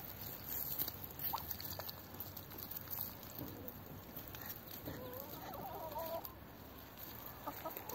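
A chicken gives one drawn-out, wavering cluck about five seconds in, with a few faint clicks around it.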